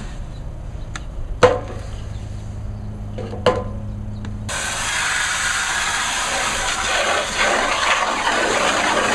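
Water from a garden hose spray nozzle filling a plastic bucket, starting suddenly about four and a half seconds in and running steadily. Before it, two sharp knocks.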